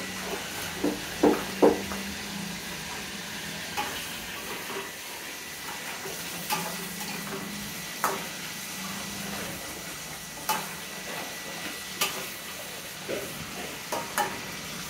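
Pork pieces sizzling as they fry in a wok, with a metal spatula knocking and scraping against the pan every second or two as they are stirred. This is the first frying stage of sweet pork (babi manis), browning the meat before the seasoning goes in.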